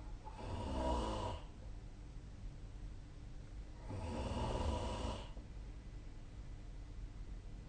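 A sleeping person snoring: two snores, each about a second long and some three and a half seconds apart, over a steady low hum.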